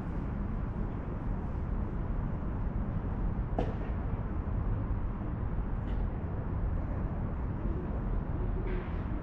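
Steady low rumble of outdoor city background noise, with a faint brief click about three and a half seconds in and another around six seconds.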